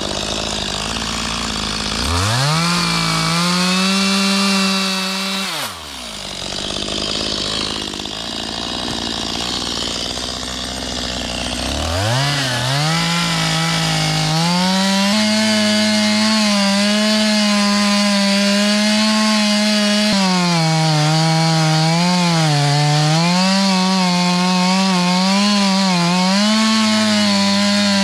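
Stihl chainsaw felling a tree: it revs to full throttle about two seconds in for a few seconds, drops back to idle, then revs up again from about halfway and runs at full throttle through the rest, its pitch dipping several times as the chain loads up in the cut.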